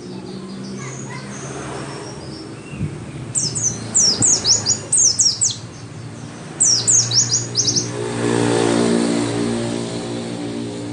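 White-eye (pleci) singing two bursts of rapid, high, downward-sliding notes, the first about three seconds in and the second near seven seconds. About eight seconds in, a low engine hum swells and slowly fades, like a motor vehicle passing.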